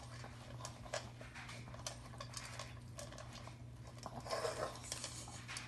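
Pomeranian eating dog food from a bowl: irregular light clicks and ticks of food against the bowl, a little louder about four seconds in.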